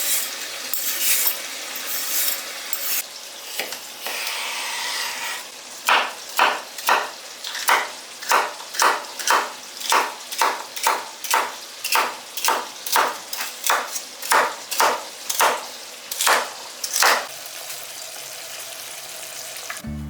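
Food sizzling in a pan. After about six seconds a spatula stirs it in steady strokes, about two a second, which stop about three seconds before the end.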